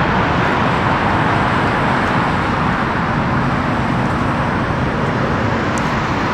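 Boeing 777's twin jet engines heard from the ground as a loud, steady rushing noise that holds even throughout.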